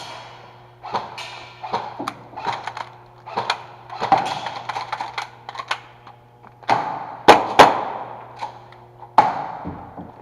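Airsoft guns firing irregular single shots and short strings of sharp snaps, each followed by a short echo, with the two loudest shots a little past halfway.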